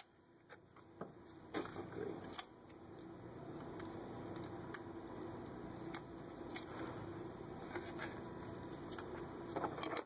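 Scattered metallic clicks and scraping from a socket, bolt and nut being worked by hand against an accessory-bracket bushing, as the bolt draws the socket in to collapse the bushing.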